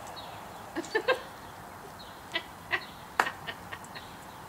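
A toddler's short vocal sounds at play: a few brief squeaks and grunts, with one sharp click a little after three seconds.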